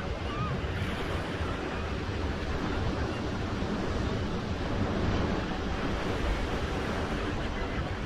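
Ocean surf breaking on a sandy beach: a steady rushing wash of waves over a deep low rumble.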